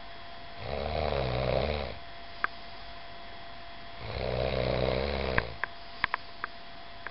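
A person snoring: two long, rasping snores a few seconds apart, each lasting about a second and a half. Several short sharp clicks follow the second snore.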